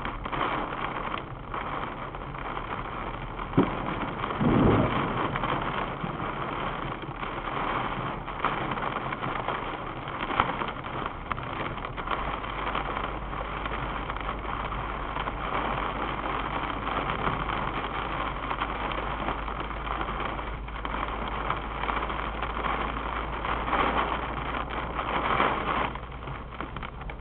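Car driving through heavy rain, the rain beating steadily on the windshield and roof over tyre and road noise. A sharp thunder crack about three and a half seconds in is followed at once by a loud low rumble from a nearby lightning strike.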